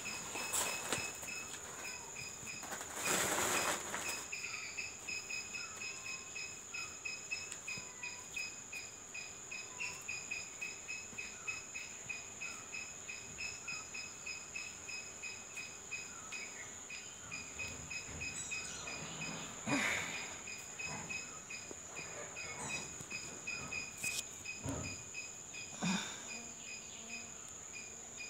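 Insects chirping in the background: a steady high whine with a fast, even pulsed chirp over it, broken a few times by short louder rustling bursts.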